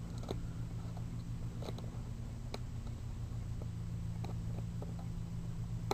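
Scattered faint clicks of plastic K'nex parts being handled as the catapult is reset and loaded, over a steady low electrical hum.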